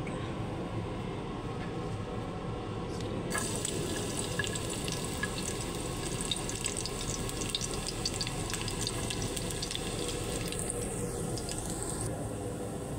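Chopped garlic frying in cooking oil in a nonstick pan: a crackling sizzle full of small pops that sets in about three seconds in and eases off near the end, over a steady low hum.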